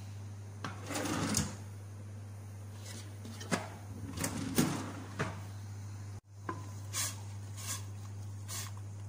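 A kitchen drawer is pulled open and rummaged, its metal and plastic utensils clattering and rustling in two bursts, over a steady low hum. After a sudden cut, a few short sharp knocks follow.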